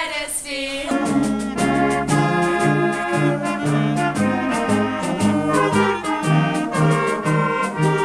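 A school concert band of clarinets, saxophones and brass playing a tune with a steady beat, coming in about a second in after a girl's voice.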